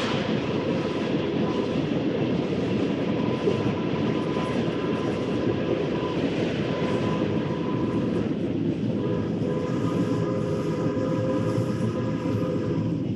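Early-1900s steam train running steadily on the rails: a dense, continuous rumble with a faint high ringing tone over it. The ringing grows clearer past the middle.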